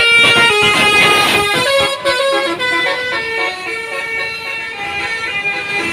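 Basuri telolet multi-tone horn on a bus playing a tune of quick stepping notes, busiest in the first two seconds, then slower held notes.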